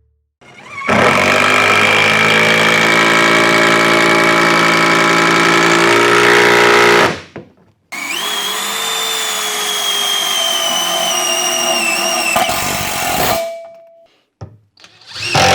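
Festool TID 18 cordless impact driver running in two long bursts, about six seconds and then about five seconds, the second with a pitch that sags slightly as it goes.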